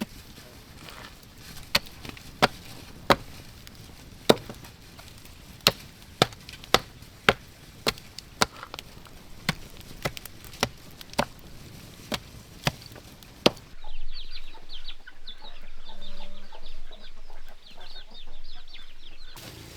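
Sharp chopping strikes of a blade on wood, irregular, about one or two a second. About fourteen seconds in the sound cuts to chickens clucking.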